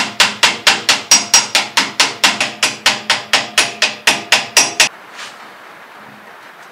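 Hammer tapping rapidly on a hydraulic cylinder part during disassembly: about twenty sharp, evenly spaced blows, roughly four a second, each with a brief ring, stopping suddenly about five seconds in.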